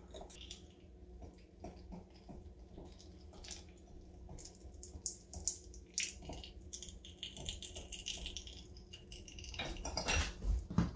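LEM 5 lb vertical sausage stuffer being hand-cranked, pushing ground pork through the horn into a casing: faint, irregular small clicks and soft squishing, with a louder knock near the end.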